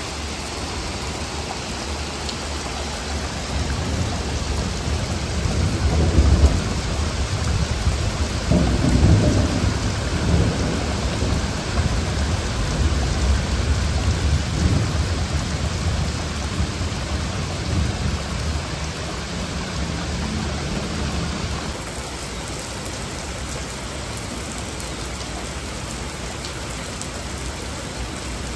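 Steady rain falling, with a long roll of thunder that builds about four seconds in, peaks twice and rumbles on before dying away about three quarters of the way through.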